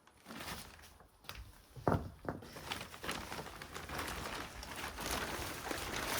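Handling noises as a bag is picked up and moved: two knocks about two seconds in, then steady rustling and scuffing.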